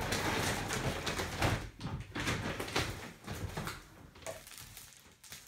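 Rustling and light knocks of packaging and shopping-bag contents being handled and rummaged through, busy for about four seconds and then quieter.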